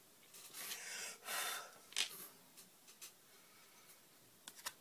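Plastic talc bottle squeezed upside down, puffing out powder with two hissy whooshes of air, followed by a sharp click and a few light clicks near the end. The bottle is nearly empty.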